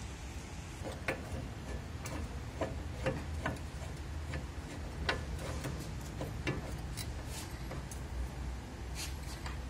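Irregular light metallic clicks and knocks of a steel pry bar working against the suspension arm while a new strut is levered into line with its lower mount, over a steady low hum.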